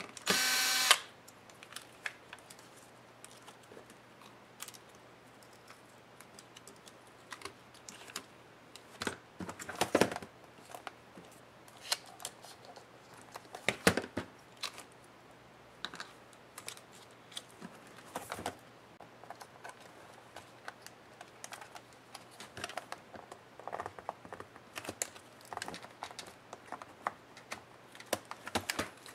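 Cordless electric screwdriver whirring briefly at the start, taking out a screw. After it come scattered clicks and taps of hands working on the plastic keyboard palm-rest and touchpad of a laptop.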